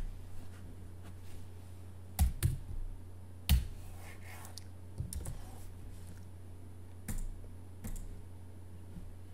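Computer keyboard being typed on: a handful of separate keystroke clicks at uneven intervals over a steady low hum.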